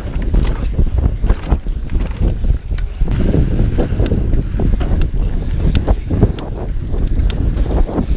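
Mountain bike descending a dirt trail at speed: wind rushing over the microphone and tyres rumbling on the ground, with frequent sharp clicks and rattles as the bike bounces over bumps.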